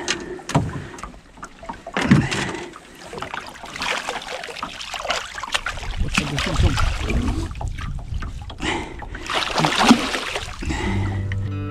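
Pike thrashing in a landing net at a boat's side, splashing and sloshing the water in irregular bursts, with knocks of the net frame and mesh against the hull; the biggest splash comes near the end.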